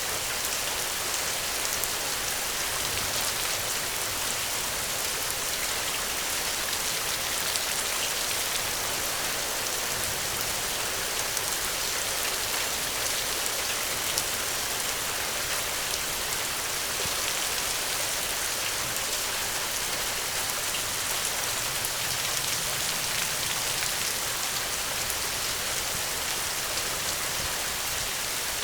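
Steady rain falling, an even dense hiss with fine drop ticks and no change in intensity.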